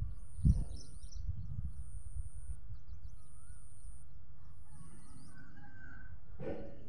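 Birds calling outdoors: scattered short chirps and whistles, with one louder harsh call near the end, over a low rumble. A high thin whine switches on and off about every second and a half.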